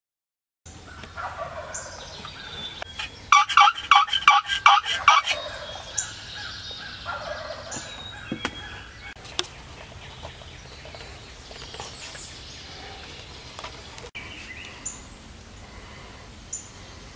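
Wild turkey gobbling: a loud, rapid rattling series lasting about two seconds, a few seconds in. Small songbirds chirp now and then afterwards.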